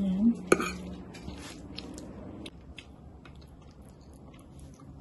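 Metal fork and spoon clinking and scraping against a ceramic plate while pulling apart sauced chicken: one sharp clink about half a second in, then lighter scattered clicks.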